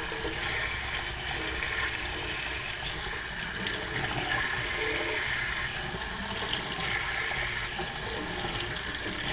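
Cold water running into an open tin of smoked oysters, splashing steadily over the oysters and oil.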